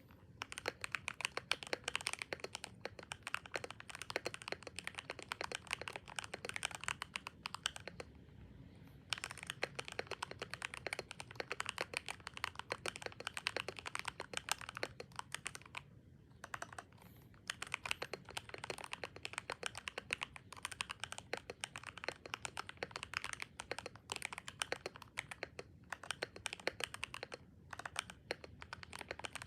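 Fast, continuous typing on a Royal Kludge RK100 mechanical keyboard with Gateron Pro Silver linear switches (two-stage springs), tape-modded with three layers and foamed, giving rapid keystroke clacks. The typing pauses briefly twice.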